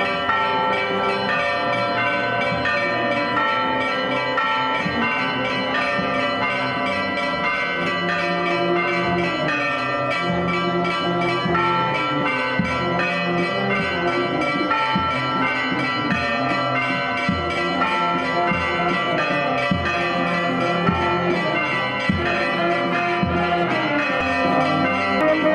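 Church bells ringing continuously, several bells pealing together in a festive ring. A brass and woodwind marching band begins to come through near the end.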